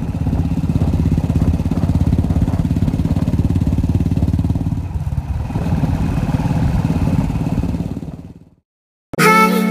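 Royal Enfield motorcycle engine running steadily at road speed on the move, with a dense, even low thumping. It fades out about eight seconds in. Music starts near the end.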